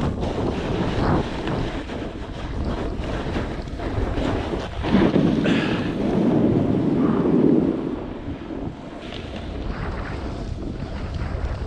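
Snowboard sliding and scraping over packed snow with wind buffeting the action camera's microphone. A louder stretch about five seconds in lasts a couple of seconds.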